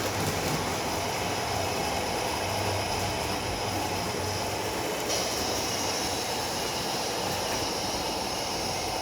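Miniature model train running on its layout track, a steady rolling hum; a faint high tone joins about halfway through.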